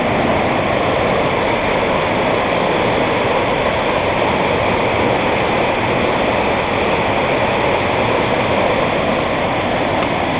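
Pis del Pesio waterfall: water falling down a rock cliff with a loud, steady rushing roar.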